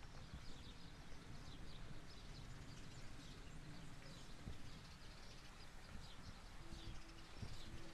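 Small birds chirping on and off over a low outdoor background rumble. A faint steady tone sounds briefly twice near the end.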